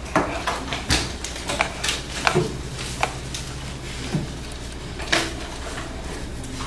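Scattered small knocks and clicks of objects being handled and set down on a desk, such as a glue stick and papers, over a low steady room hum, with a brief voice sound or two.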